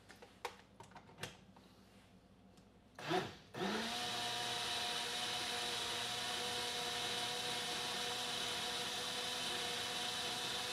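Personal cup blender: a few small handling clicks, then about three and a half seconds in the motor starts and runs at a steady hum, blending a milkshake.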